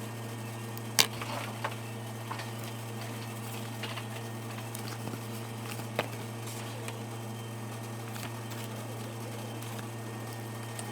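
A steady low hum with a few sharp clicks or taps over it, the loudest about a second in and another about six seconds in.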